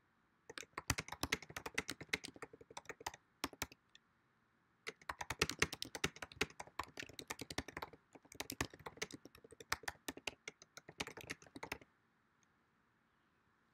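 Typing on a computer keyboard: quick runs of key clicks, a short break about four seconds in, then more typing that stops about twelve seconds in.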